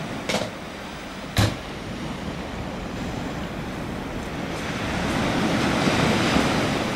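Sea surf washing onto a beach: a steady rush of noise that swells louder about five seconds in as a wave breaks. Two sharp clicks, about a second apart, come near the start.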